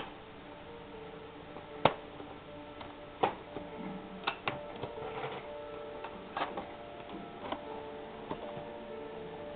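A few light clicks and taps at irregular intervals, about six in all, over faint steady background tones.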